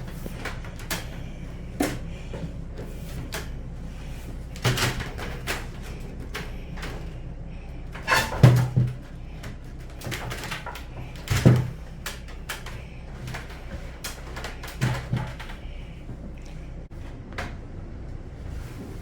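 Several sudden knocks and clunks, the loudest a double clunk about eight seconds in, over a steady low hum.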